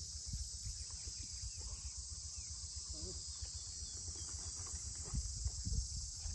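Steady, high-pitched drone of an insect chorus, with a low rumble of wind on the microphone underneath. A faint distant voice comes through briefly about three seconds in.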